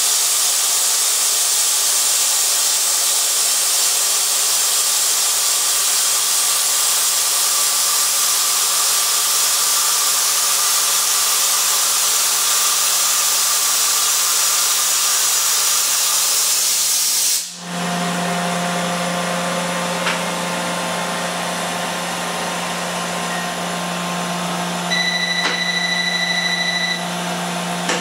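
Mori Seiki NVX5080 vertical machining center profile milling a metal block with an end mill, with a loud steady hiss over the running machine. The hiss cuts off suddenly about two-thirds of the way through as the tool leaves the part, leaving a steady machine hum. Near the end a brief high tone sounds for about two seconds.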